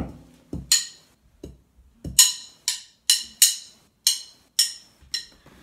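Sharp metallic pings from a snare drum and cymbal set being struck, about eight strikes in an uneven rhythm, each ringing briefly, after a dull thump at the start.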